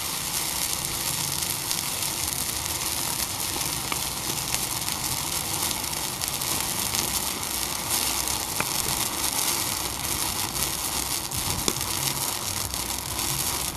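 Thermite (iron(III) oxide and aluminium powder) burning with a steady hiss and a few faint clicks.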